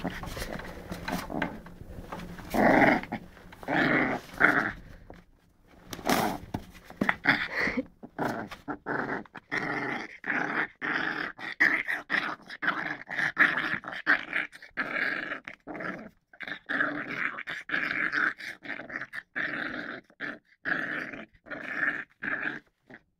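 Dog growling over and over in short, rapid bursts, with a few louder separate outbursts in the first several seconds; an angry growl.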